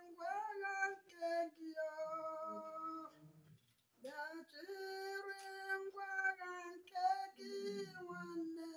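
A woman singing a slow melody in long held notes, in two phrases with a short break about three and a half seconds in.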